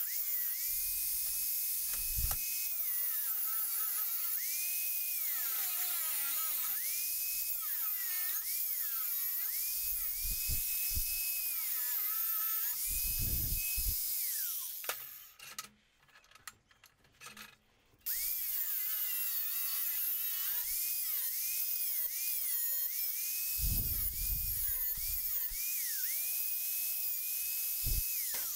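Angle grinder grinding facets onto a steel demolition chisel, its motor whine repeatedly dipping in pitch as the disc bites and rising again when eased off, over a gritty grinding hiss. It stops for a few seconds about halfway through, then starts grinding again.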